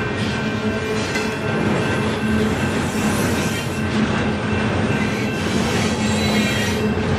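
Union Pacific freight train rolling past at close range: a loud, steady noise of wheels on rail, with a few steady tones held over it.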